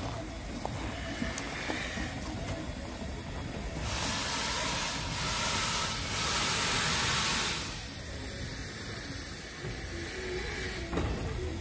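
Narrow-gauge steam locomotive venting steam with a loud hiss in two close bursts about four seconds in, lasting about three and a half seconds, over a steady low rumble.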